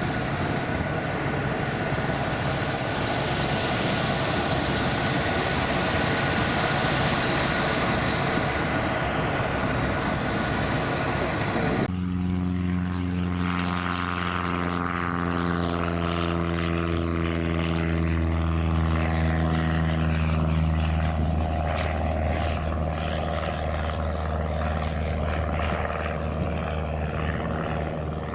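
Aircraft engine noise. A broad rushing roar lasts about twelve seconds, then cuts abruptly to a propeller plane's steady low drone, a buzzing note with many overtones.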